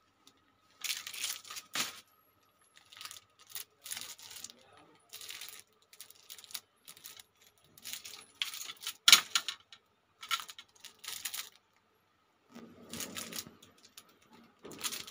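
Several badminton rackets handled together, their frames and shafts clicking and clattering against each other in a string of short, irregular rattles.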